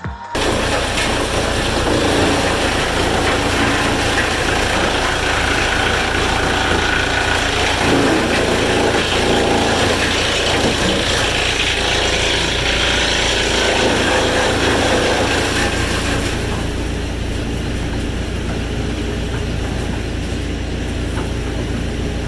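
Sawmill machinery running steadily with an engine hum underneath and a rough, noisy upper layer; the noise thins and drops a little about sixteen seconds in.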